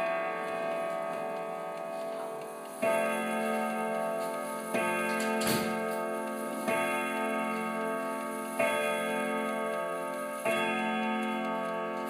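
Tall-case clock with twelve hammers on twelve rod gongs striking the same many-note chord five times, about two seconds apart, each chord ringing on into the next, with the movement ticking underneath. A sharp click sounds near the middle.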